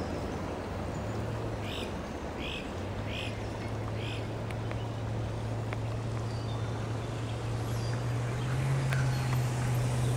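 Creek water rushing over a riffle, with a low steady drone that grows louder toward the end. Four short high calls come evenly spaced, about one every 0.7 s, between two and four seconds in.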